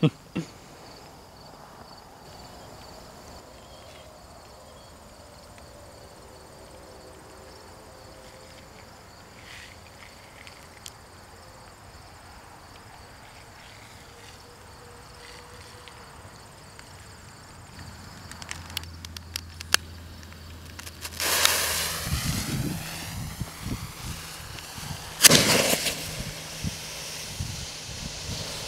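Insects chirp faintly and steadily. After a few scattered clicks, a firework on a cinder block ignites about 21 s in with a loud hissing rush and crackling, gives a sharp bang about 25 s in, and keeps hissing.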